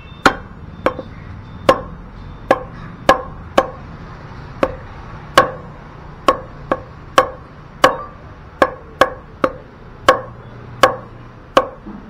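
Heavy butcher's cleaver chopping goat meat on a round wooden chopping block: a steady run of about eighteen sharp chops, roughly one every half second.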